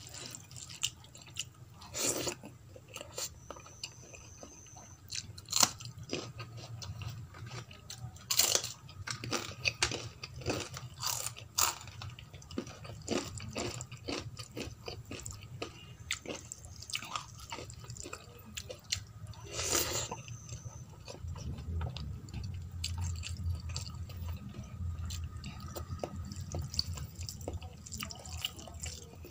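Close-miked eating by hand: wet squishing as fingers mix rice and vegetable curry on a steel plate, with chewing and scattered mouth clicks and smacks, a few of them sharper and louder. A low hum runs underneath and grows stronger in the second half.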